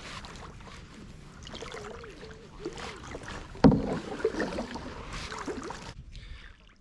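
Kayak being paddled: water noise and paddle splashes, with one sharp loud knock a little past halfway. The sound cuts off suddenly about six seconds in.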